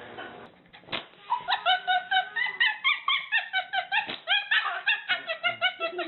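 A dog giving a fast run of short, high yips or whines, about four a second, starting a little over a second in after a single click.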